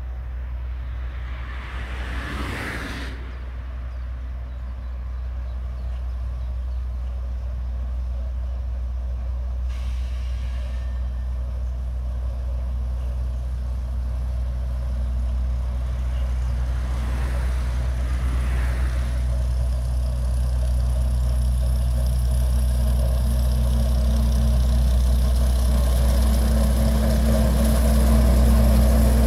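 Diesel shunting locomotive hauling a train of hopper wagons, its engine running with a steady low drone that grows louder as it approaches. A short hiss about ten seconds in.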